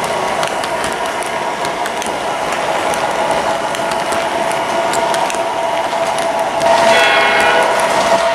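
MTH Premier O-gauge SD70M model diesel locomotive running with its passenger cars: a steady hum and whine with quick clicking of wheels over the track. About seven seconds in, the locomotive's sound-system horn starts to blow and is held on past the end.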